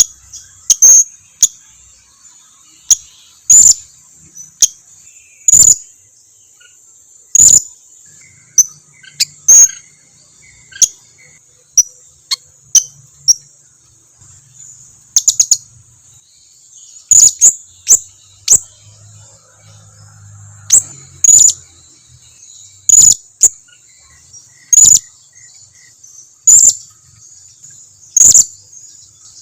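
Blue-crowned hanging parrot (serindit) giving short, sharp, very high-pitched calls, one or two at a time, repeated every second or two. A faint steady high insect hiss runs underneath.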